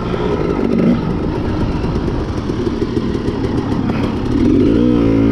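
Dirt bike engine running as it is ridden over a dirt track; about four and a half seconds in the revs climb, then hold steady at a higher pitch.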